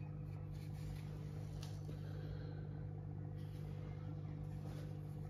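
A steady low mechanical hum, even throughout.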